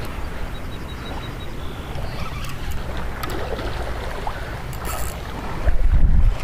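Seaside wind-and-water ambience: a steady wash of sea and wind, with gusts buffeting the microphone near the end.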